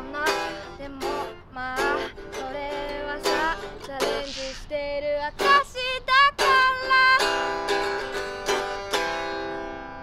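Acoustic guitar strummed with a woman singing a melody over it, ending on a long held chord and note that fades away.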